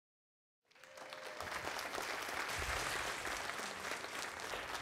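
Audience applauding, starting about a second in and easing off slightly toward the end.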